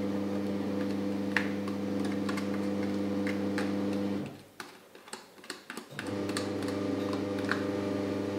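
A metal fork clinking and scraping against a glass mixing bowl as mashed banana is tipped in from a plastic bag. Under it runs a steady low hum that drops out for about two seconds midway.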